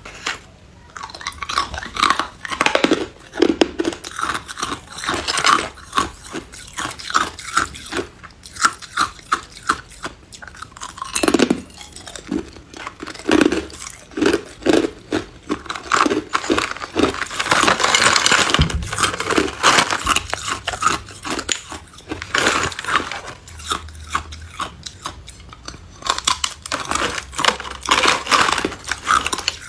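Hard ice cubes being bitten and chewed close to the microphone: dense, irregular crunching and cracking as the ice breaks between the teeth.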